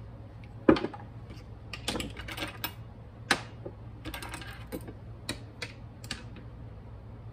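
A string of sharp clicks and light knocks from a small glass jar being handled and set down on a kitchen countertop, the loudest about a second in.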